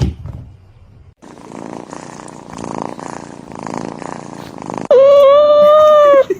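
Domestic cat purring in rhythmic swells. Near the end comes a loud, drawn-out high-pitched cry held at one pitch for over a second.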